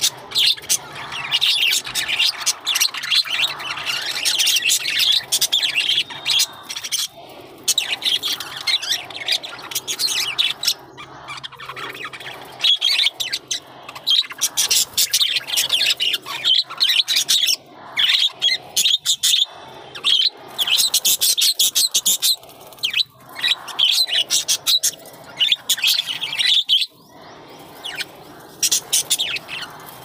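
A flock of budgerigars chirping and chattering, many quick high calls overlapping almost without a break, with a few short lulls.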